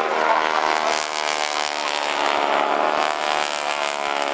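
Piston engine of a wing-walking display biplane flying past, a steady drone with several tones.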